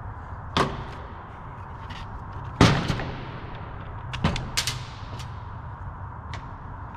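Four sharp bangs ring out over a steady low hum: one under a second in, a louder one with a long echoing tail about two and a half seconds in, and two close together a little past four seconds in.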